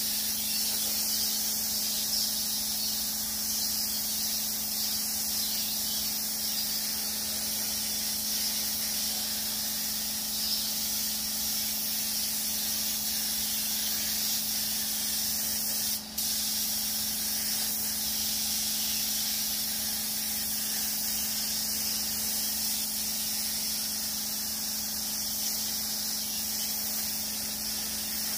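K3-type air spray gun hissing steadily as it sprays metallic paint in thin coats, with a steady low hum underneath. The spray stops for a moment about halfway through, then resumes.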